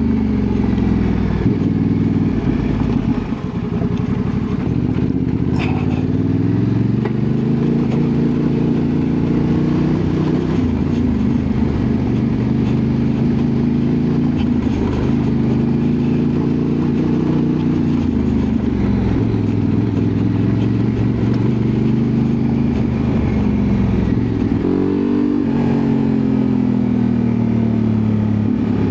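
Honda Transalp 750's parallel-twin engine running under way, its pitch climbing and dropping again and again as the throttle is opened and closed.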